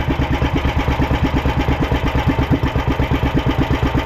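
A freshly overhauled fishing boat engine running steadily with an even chugging beat of about nine pulses a second. It is on a test run after being rebuilt, and the owners take its sound as the sign that it is back in good running condition.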